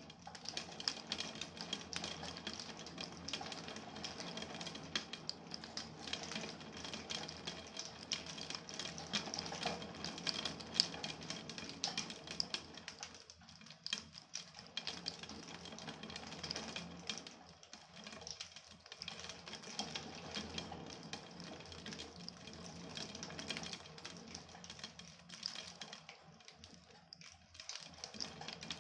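Heavy storm rain: a dense patter of drops striking a hard surface close by, easing briefly a few times in the second half.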